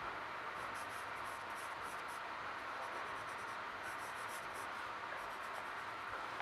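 Pencil scratching across sketchbook paper in clusters of short strokes, over the steady hiss and rumble inside a moving commuter train car.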